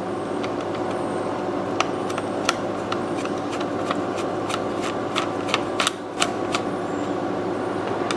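Small sharp clicks and ticks of a precision Phillips screwdriver working a screw out of a plastic Xbox One controller, irregularly spaced with a brief cluster about two thirds of the way in, over a steady background hum.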